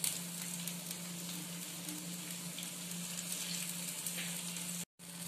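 Gima-leaf fritters (bora) frying in mustard oil in a pan: a steady sizzle, with a light knock at the start. The sound cuts out briefly near the end.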